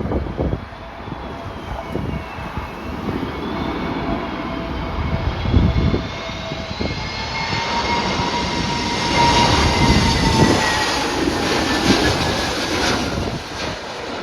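Airliner passing close, its engines whining, with several tones slowly sliding in pitch; loudest about two-thirds of the way through. Gusts of wind buffet the microphone throughout.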